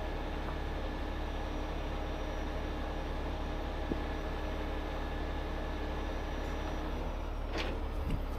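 Heavy 50-ton rotator tow truck's winch running under engine power as the cables are handled after a recovery: a steady hum of several held tones over a low rumble, cutting off about seven seconds in, with a few sharp metallic clicks near the end.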